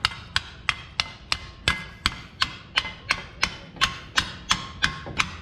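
Hammer striking in a steady rhythm, about three blows a second, each hit ringing metallically, knocking a rusted rear brake pad out of its caliper bracket.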